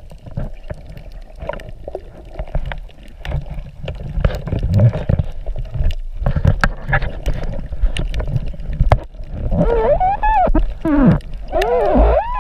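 Underwater sound as picked up by a submerged camera: a low rumble of moving water with scattered clicks and knocks, and from about nine and a half seconds in a wavering tone that rises and falls in pitch.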